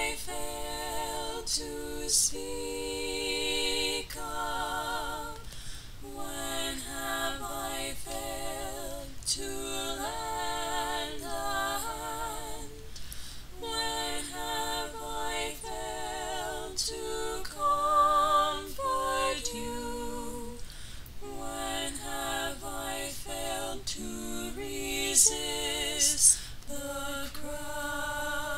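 Unaccompanied singing: a voice with vibrato carrying a melody in held notes.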